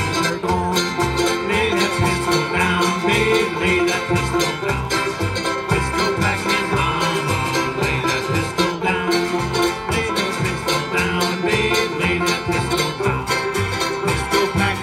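Acoustic bluegrass string band playing live: upright bass, acoustic guitar, mandolin and banjo, with the bass keeping a steady beat under the picked melody.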